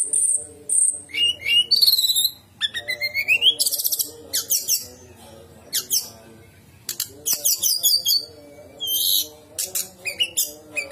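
Songbird singing a fast, varied song of rising whistled glides, rapid high trills and sharp clicks, in bursts with a short pause midway.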